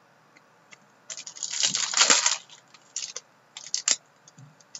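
Foil trading-card pack wrapper crinkling and tearing for about a second, beginning about a second in. A few short, sharp clicks of cards being handled follow.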